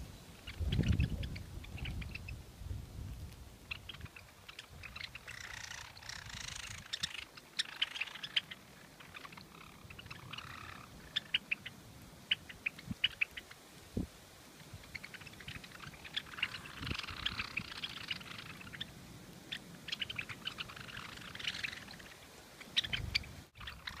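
A flock of Java sparrows feeding at a seed feeder: a busy run of short, sharp chips and clicks. It thickens into a chattering flurry about five to eight seconds in and again about sixteen to nineteen seconds in. A low rumble sits under the first few seconds.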